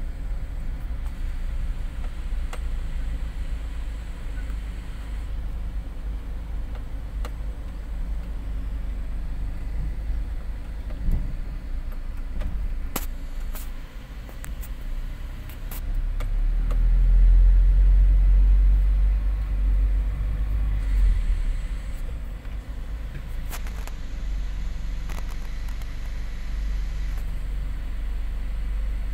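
Low, steady rumble of a slow-moving motor vehicle, swelling louder for a few seconds about two-thirds of the way through, with a few faint clicks.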